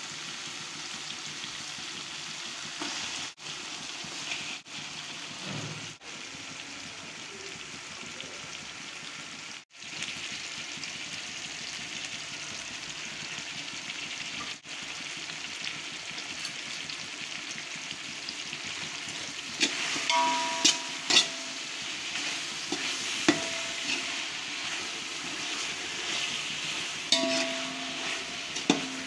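Oil sizzling steadily in a metal pot as chopped tomato, then chicken masala, fries over medium heat. In the last third, a stirring utensil scrapes and clinks against the pot several times, each knock leaving a short metallic ring.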